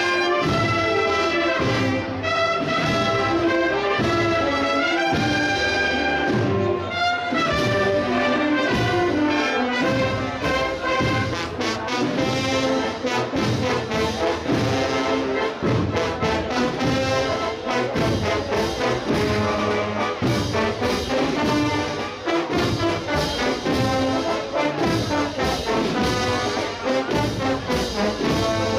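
Brass band playing a processional march, trumpets and trombones carrying the melody over a steady drum beat.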